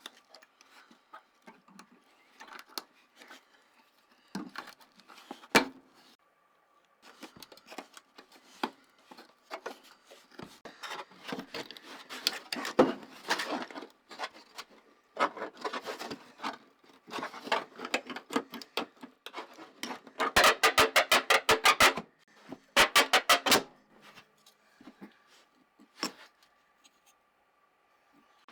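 Hand-tool work on wood and metal parts: scattered knocks and clicks and stretches of scraping. Just past the middle come two quick runs of sharp, even taps, about eight a second.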